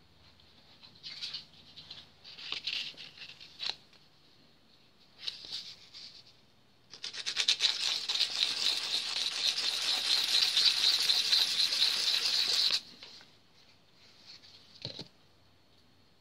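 The lead of a Staedtler Mars 780 lead holder scrubbed hard and fast back and forth against a piece of card for about six seconds, deliberately blunting the sharpened point; it stops abruptly. Before it come a few short handling rustles and clicks, and after it one click.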